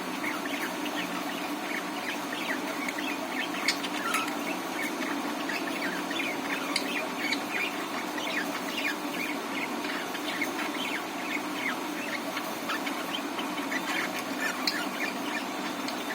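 Budgerigars chirping and chattering in a continuous stream of short, quick, high chirps, over a steady low hum.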